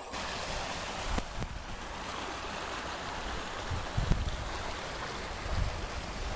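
Shallow creek running over stones in a small riffle: a steady rush of water, with a few low bumps near the middle.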